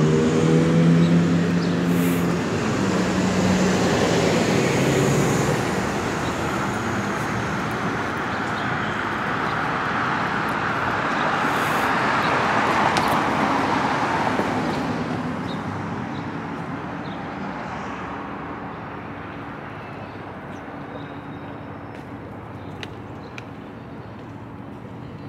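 Street traffic: an engine revving up with rising pitch at the start, then a car passing close with a rushing tyre noise. It is loudest about halfway through and fades away afterwards.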